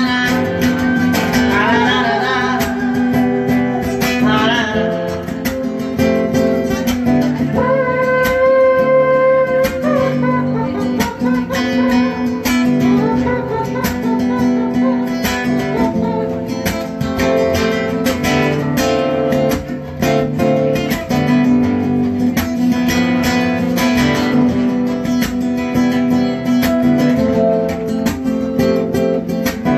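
An acoustic guitar strummed steadily, with a voice singing a slow ballad over it. This is a live performance of a song.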